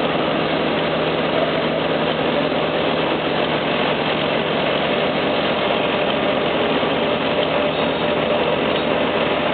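Heavy diesel engine running steadily at idle, an even drone with no change in revs.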